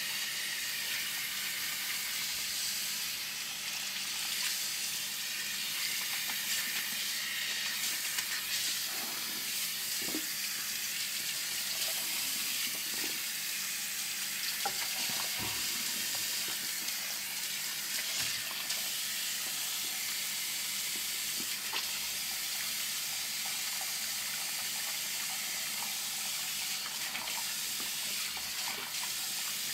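Water spraying steadily from a handheld shampoo-basin shower head over a man's hair and scalp, a continuous hiss, with a few faint clicks as the hair is rinsed.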